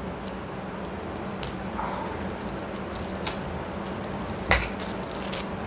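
Plastic wrapping around a stack of books being cut and picked open by hand: scattered small crackles and scratches, with one sharp crack about four and a half seconds in.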